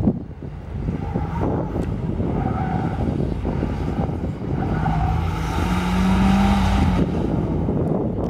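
Mitsubishi Lancer sedan's engine revving hard as it is driven quickly through a cone course, with the engine note held high and steady for a couple of seconds about two-thirds of the way through.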